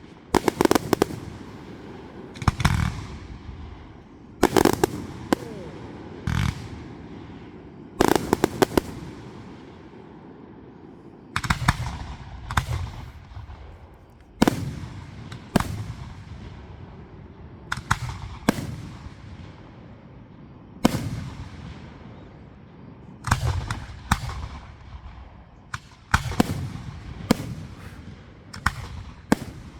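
Fireworks going off: a string of loud bangs every second or two, some coming as quick clusters of cracks, each followed by a fading rumbling echo.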